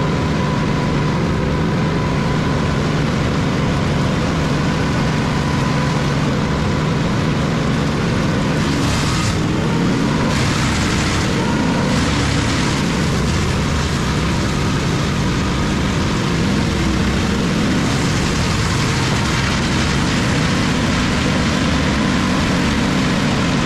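Large wood chipper running steadily under load, a dense engine-and-drum noise with a strong low hum, harsher for a moment twice in the middle as material passes through.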